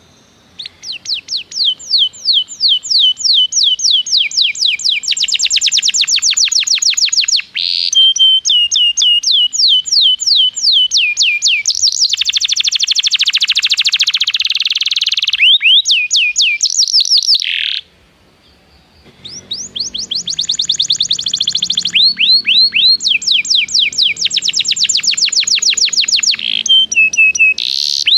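Domestic canary singing a long song made of fast trills, each a rapid run of the same sweeping note repeated many times before switching to a new note type. The song breaks off for about a second around two-thirds of the way through, then resumes.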